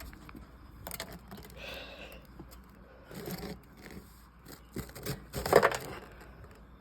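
Ice-crusted snow scraping and crunching, with scattered sharp clicks and a louder crunch about five and a half seconds in.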